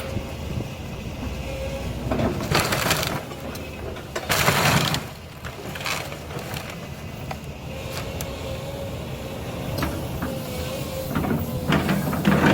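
Heavy demolition machine running with a steady engine drone while the old wooden house is torn apart, with loud bursts of crashing and cracking debris about two, four and eleven seconds in.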